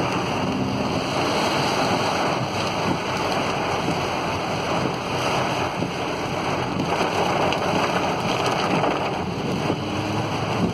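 Fast-flowing floodwater rushing and splashing in a steady wash of noise, with wind buffeting the microphone.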